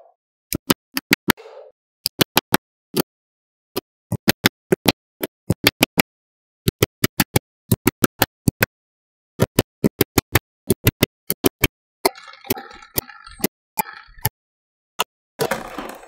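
Small magnetic balls clicking as they snap together, in quick runs of sharp clicks with dead-silent gaps between them. About twelve seconds in there is a short rattling rustle of many balls shifting against each other.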